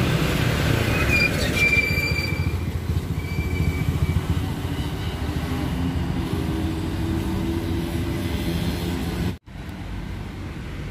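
Heavy diesel vehicles passing close: the Hino RK260 intercity bus, then a box truck, with a dense engine and tyre rumble and a thin high squeal a second or two in. The sound cuts out briefly near the end.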